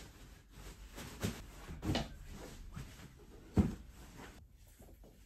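Pillows and bedding being handled as a bed is made: soft rustles and light thumps, the loudest a single dull thump about three and a half seconds in.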